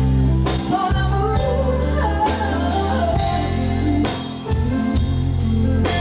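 Background music: a song with a singing voice over a heavy bass line, drums and guitar.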